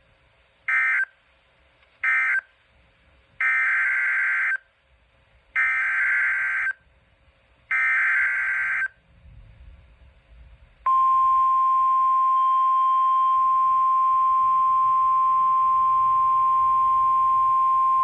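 Emergency Alert System data bursts over a weather radio: two short buzzy bursts closing the first warning, then three longer buzzy header bursts about two seconds apart announcing the next warning. About eleven seconds in, a loud steady single-pitch alert tone starts and holds.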